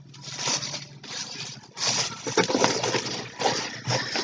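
Rustling and light clicks and knocks of items and packaging being handled, busier in the second half.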